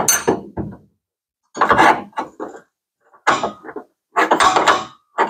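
Steel pry bar levered in the truck bed's bolt hole, scraping and clunking against the metal in four short bursts as the bed is nudged into line with the frame.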